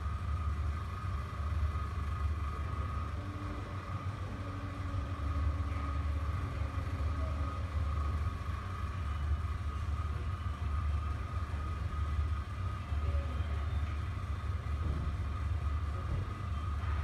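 Steady low rumble with a thin, steady high whine over it: background machinery or room hum, with no distinct event.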